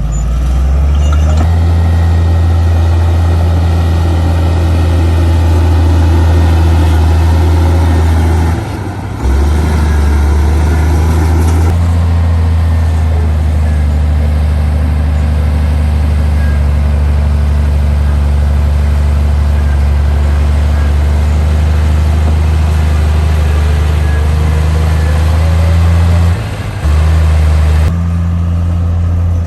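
Heavy earthmoving machine's diesel engine running with a steady deep drone, dropping briefly about nine seconds in and again near the end.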